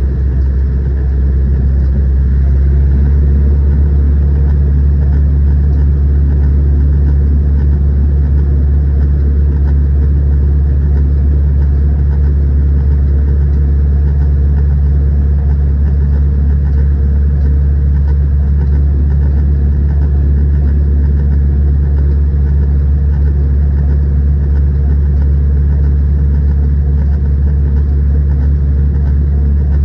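Zetor 6211 tractor's diesel engine running steadily under way, a loud low drone; it picks up slightly in the first couple of seconds, then holds an even pitch.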